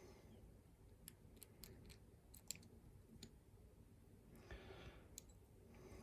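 Faint, scattered small metal clicks and ticks as a lock is handled and shimmed to pull the plug out, the sharpest about two and a half seconds in.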